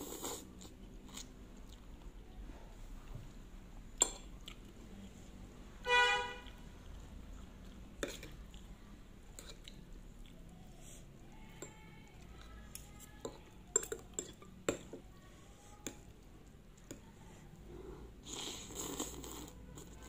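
Eating noodles with a fork from a ceramic plate: a noodle slurp at the start and another near the end, quiet chewing, and scattered clicks of the metal fork against the plate. About six seconds in, one brief ringing clink is the loudest sound.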